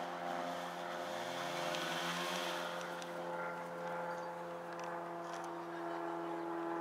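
Steady engine hum, its pitch gliding briefly between about one and three seconds in.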